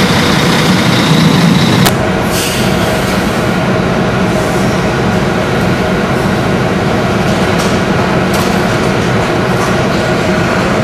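A truck engine idling close by, then, after an abrupt change about two seconds in, a steady vehicle rumble with a faint steady whine as traffic drives off the ferry.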